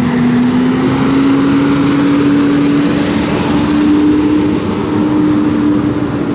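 A motor vehicle driving past close by on the street, its engine hum holding one loud steady note that rises slowly in pitch, over tyre and road noise.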